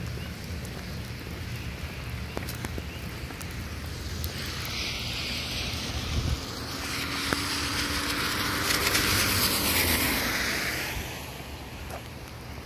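Rain falling, with a vehicle passing on the wet road: its tyre hiss swells over several seconds in the middle, then fades away.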